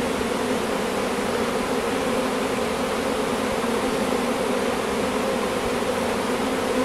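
Steady hum of a large swarm of honeybees buzzing together: a newly caught swarm settling into its hive, many bees still around the entrance.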